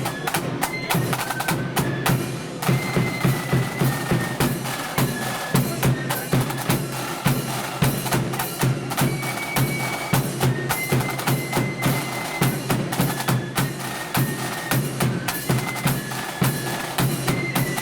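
Marching flute band playing: a high flute melody over snare drums and a bass drum beating a steady march rhythm.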